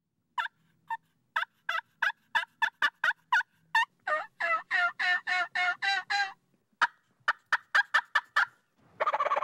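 Hand-worked turkey calls imitating hens: a quick run of short, sharp yelps, then a series of about eight longer, louder yelps, then more short clucking notes. About nine seconds in, a loud rattling turkey gobble begins.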